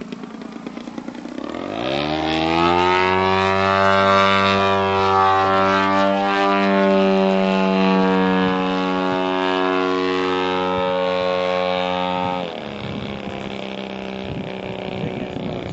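Radio-control model airplane engine revving up to a steady high-throttle run for about ten seconds, then throttled back abruptly near the end to a lower running sound.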